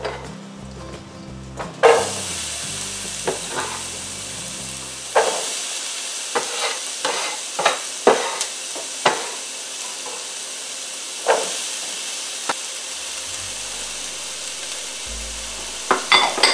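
Chopped onion and bell peppers dropped into hot oil in a skillet, sizzling suddenly about two seconds in and then frying steadily, with scattered sharp knocks as more vegetables are scraped into the pan from the cutting board.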